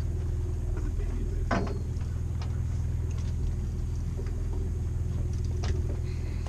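Steady low mechanical hum of the party boat's running machinery, with a knock on deck about a second and a half in and another near the end.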